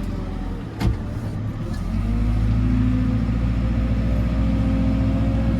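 JCB 4CX backhoe loader's diesel engine running while the front bucket pulls stone back, with a single knock about a second in. About two seconds in the engine gets louder and holds a steadier note, working under load.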